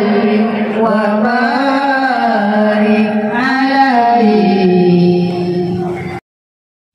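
A voice singing a slow, wavering melody, ending on a long held note. It cuts off abruptly about six seconds in, leaving silence.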